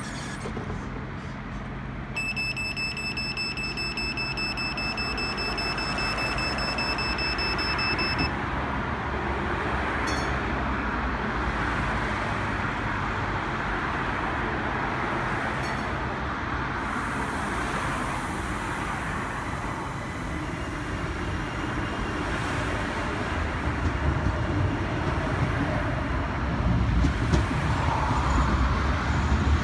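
Stagecoach Supertram Class 399 Citylink tram-train standing at a platform, with a high steady electronic tone lasting about six seconds. It then pulls away, and a low rumble of the tram and road traffic grows louder near the end.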